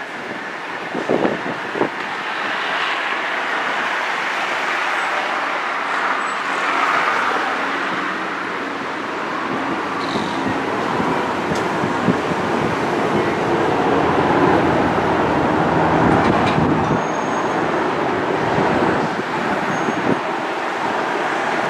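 Steady rushing noise of a vehicle in motion, with a couple of knocks about one to two seconds in.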